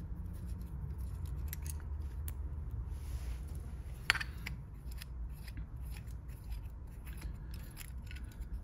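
Faint metallic clicks and light scraping from small screws being worked loose by hand on a scooter's variomatic, with one sharper click about four seconds in, over a low steady hum.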